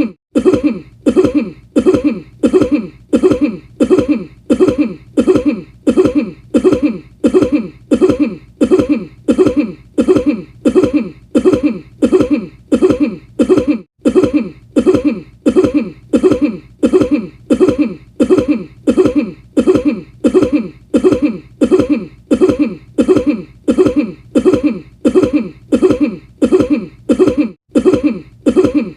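The same short cough repeated in a loop at an even pace of nearly two a second, each one alike, with a falling pitch.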